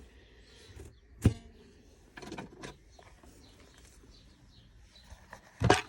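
Clicks and knocks from handling a gear knob on its lever: one sharp click about a second in, a few faint clicks after it, and a louder knock near the end.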